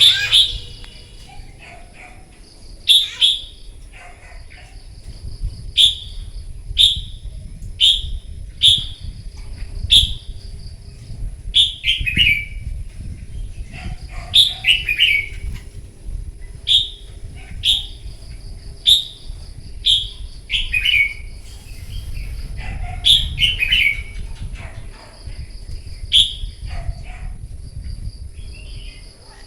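Red-whiskered bulbuls singing their challenge song: loud, short, falling whistled notes about once a second, some run together into quick phrases. An insect trills steadily behind them.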